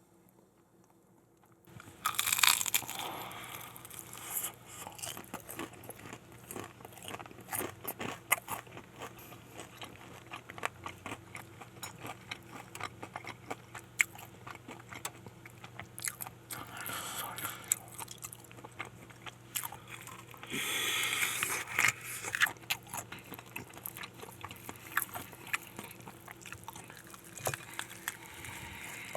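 Close-miked biting into a crispy fried chicken drumstick and chewing, the crust crunching. Loud crunches come about two seconds in and twice more later on, with steady crunchy chewing between.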